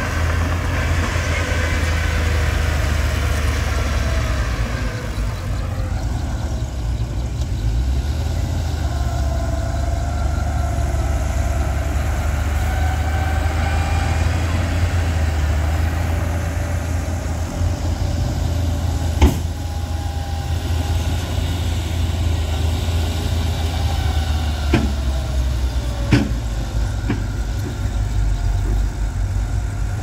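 Diesel engines of a dump truck and a small crawler bulldozer running steadily as dirt is dumped and pushed. The sound changes about six seconds in, and there are three short sharp knocks in the second half.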